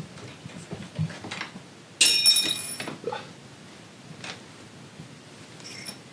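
A small metal tool hits something with a sharp clink and rings for about a second, with a fainter clink near the end. Light handling and rustling of chair parts around it.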